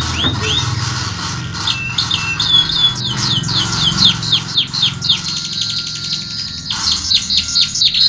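Male canary singing: long runs of quick, high down-sweeping notes, with a few short held notes about two seconds in and a faster rattling trill near the end.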